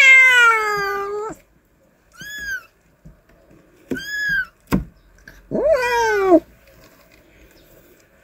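Cat meowing: a long, falling meow at the start and another rising-then-falling one about five and a half seconds in. Between them come two short, high-pitched mews, typical of newborn kittens.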